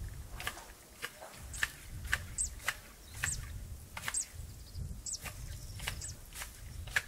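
Hand shears snipping over and over, a sharp click roughly every half second to a second.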